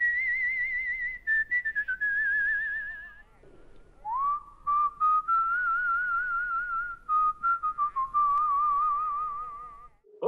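A person whistling a slow melody with vibrato: one phrase ending about three seconds in, a short pause, then a second, lower phrase that runs until near the end.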